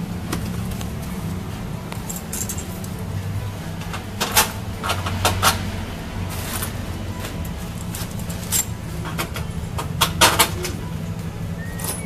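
Sharp metallic clinks and knocks of tools and bolts against a vehicle's underbody: several around four to five and a half seconds in, single ones later, and a cluster near ten seconds. A steady low hum runs beneath them.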